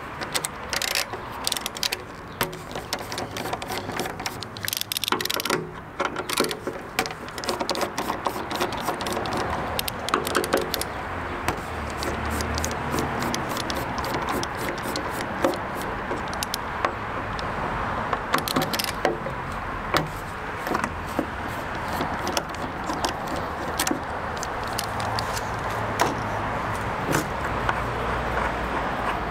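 Small metal bolts being unscrewed from a motorcycle's stock windscreen with a hex-bit screwdriver: scattered clicks and light rattles of the tool and the loose bolts and washers, most frequent in the first ten seconds, over a steady outdoor background hum.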